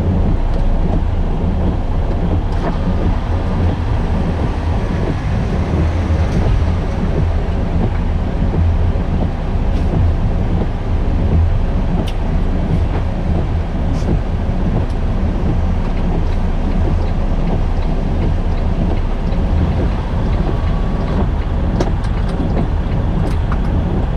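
Semi-truck's diesel engine running at low speed, heard inside the cab as a steady low rumble.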